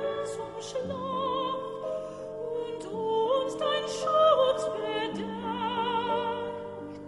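Background music: a melody in wide vibrato over held lower notes.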